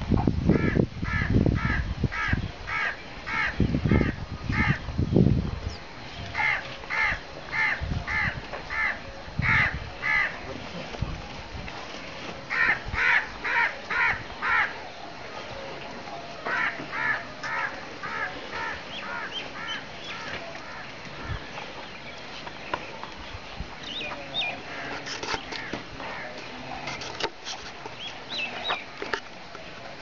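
A bird calling in repeated runs of short calls, about two a second, with pauses between the runs. Low rumbling noise in the first few seconds.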